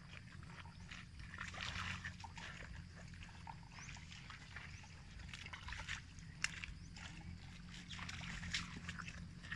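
Water buffalo grazing: irregular rustling, tearing and crunching of grass and leafy plants as they pull up mouthfuls, with a single sharp click about six and a half seconds in.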